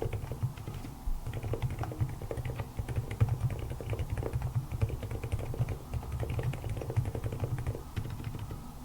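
Fast, continuous typing on a Cox CA75 full-aluminium mechanical keyboard: a dense, unbroken run of key strokes.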